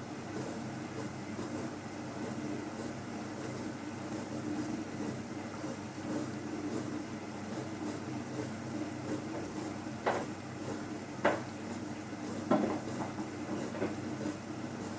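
Hoover All In One washing machine running at the start of a cycle: a steady motor hum, with four sharp knocks from about ten seconds in, roughly one every second and a bit.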